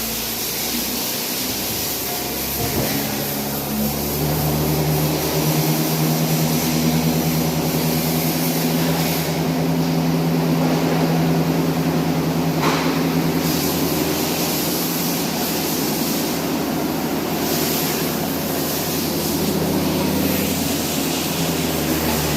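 A motorcycle engine running steadily at idle, its hum picking up slightly a few seconds in and then holding.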